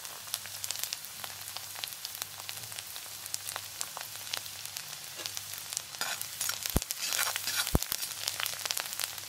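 Finely chopped garlic sizzling and crackling in hot oil in a wok, with a spatula stirring it. The stirring grows louder near the end, with two sharp knocks.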